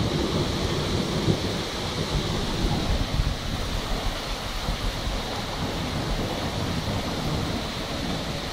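Steady rain during a thunderstorm, with a low rumble of thunder dying away in the first second.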